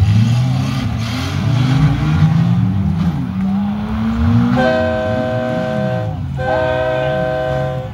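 Six-cylinder demolition derby cars' engines revving up and down. Past the halfway point a horn sounds two long, steady blasts with a short break between them.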